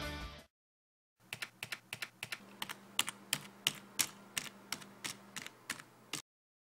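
Computer keyboard typing sound effect: a run of irregular key clicks, about three a second, starting about a second in and stopping shortly before the end, with a faint hum beneath. Background music cuts off in the first half-second.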